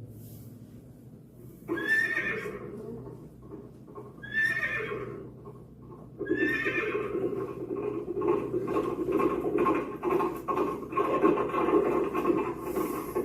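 Horse whinnies, three of them about two seconds apart, followed from about six seconds in by a steady run of galloping hoofbeats, played as a sound effect in the soundtrack of a Goguryeo war-drum performance.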